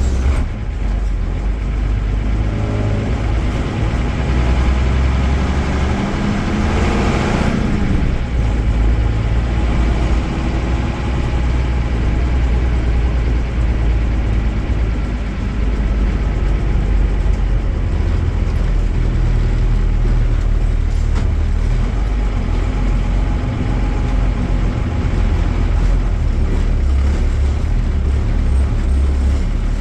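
Mercedes-Benz OM-366A six-cylinder diesel engine of a Marcopolo coach on an OF-1318 chassis, running under way with a steady low rumble. The engine rises in pitch as it pulls, and a short hiss comes about seven seconds in.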